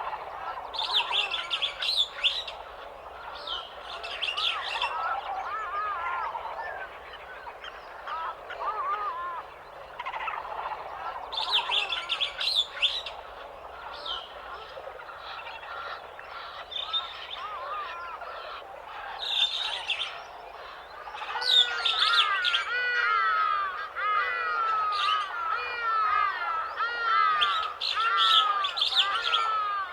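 Several birds chirping and calling together, with bursts of high chirps every few seconds over lower warbling notes that grow busier toward the end.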